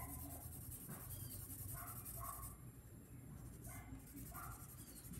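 Orange felt-tip pen scribbling on paper, rapid back-and-forth strokes colouring in a drawing, with short squeaky strokes about every half second. It is quiet, and the scratching is strongest in the first half.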